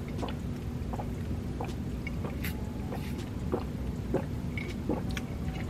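Orange juice being sipped through a metal straw from a glass mug: soft sucking and swallowing with faint scattered clicks, over a steady low rumble.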